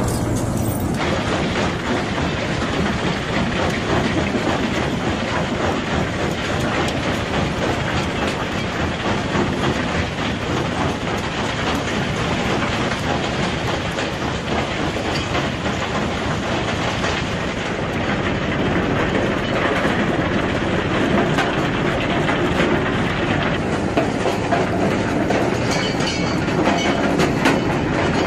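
Industrial shredding machine running, a steady dense rattle and crunch of material being broken up, growing a little louder in the last third.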